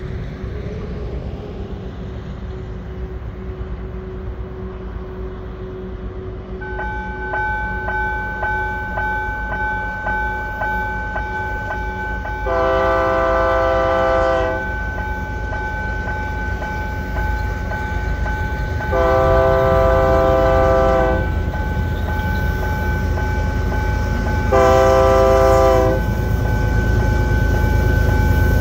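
GE ES44AC diesel locomotive approaching with its engine rumbling; its bell starts ringing about a quarter of the way in, about two strikes a second, and the multi-chime air horn sounds three blasts, two long and a shorter third.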